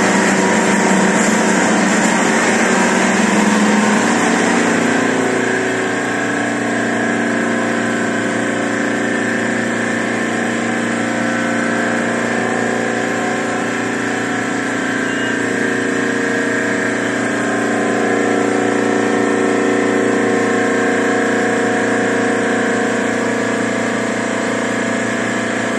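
A 2006 Adast Dominant 847 four-unit sheetfed offset printing press running at a steady pace, a continuous mechanical din that eases slightly about five seconds in.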